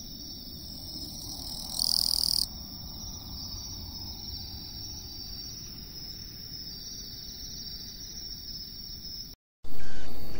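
Katydid stridulating at night: a steady, high insect chorus with one louder buzzy call about two seconds in. Near the end the sound cuts out briefly and a loud chime begins.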